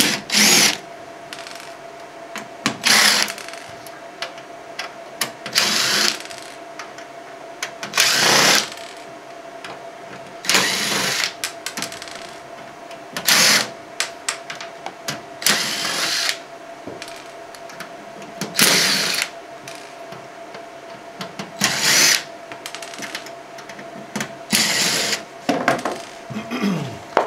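Cordless power driver spinning screws out of the back panel of a laser printer in short runs, about ten of them a few seconds apart, over a faint steady hum.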